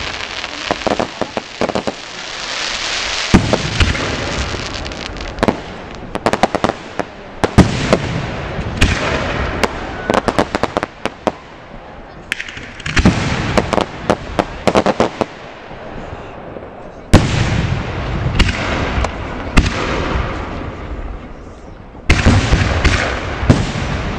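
Aerial fireworks shells launching and bursting in a series of sharp bangs, with quick runs of crackling pops and stretches of hiss between them.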